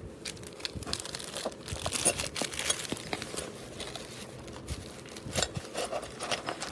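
Plastic packaging crinkling and rustling as small parts are unwrapped and handled, with scattered light clicks and knocks, loudest about two seconds in.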